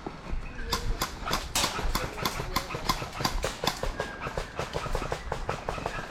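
Running footsteps: quick, sharp footfalls at about five a second over a low rumble of movement.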